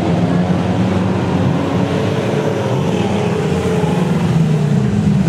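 Several stockcar engines running together at once, their overlapping pitches rising and falling as the cars accelerate and slow.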